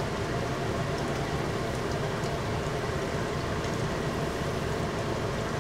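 Battered chicken pieces deep-frying in hot oil at about 400°F for their second fry: a steady, even sizzle and bubbling, the stage that drives the last moisture out of the coating to crisp it. Under it runs the steady rush of the range hood fan.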